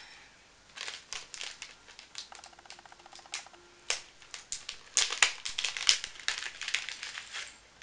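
Small clear plastic packaging bag crinkling and crackling as it is pulled and torn open by hand, in a string of sharp crackles that are loudest about five seconds in.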